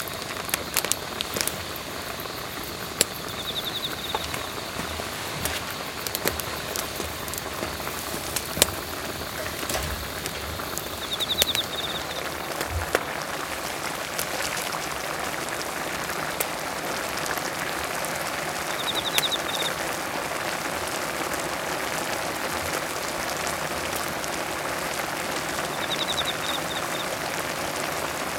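Open wood fire crackling under a pan of gopchang jeongol (spicy beef-tripe stew) boiling with ramen noodles in it: a steady sizzling hiss dotted with sharp pops. A short high trill sounds four times, about every seven or eight seconds.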